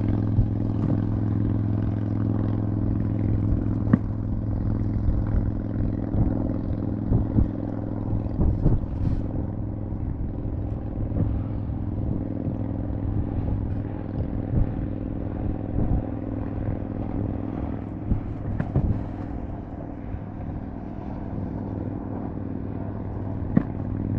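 A motor humming steadily at one pitch, with scattered light knocks and clicks.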